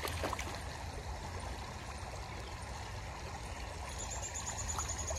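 Steady rushing of a small creek's running water. A faint, thin high tone comes in about four seconds in.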